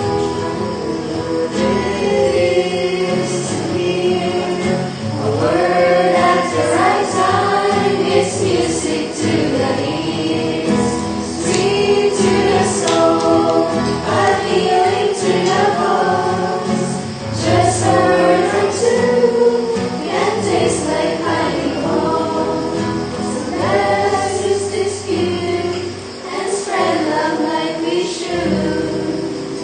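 Background music: a choir singing a gospel-style song.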